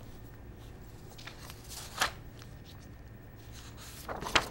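Sheets of paper rustling as they are handled and shuffled: a few light rustles, a sharp one about two seconds in, and a quick burst of rustling near the end.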